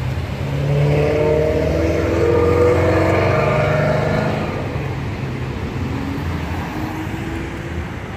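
A motor vehicle's engine running as it passes close by, its note swelling for a few seconds and then fading, over a steady low traffic rumble.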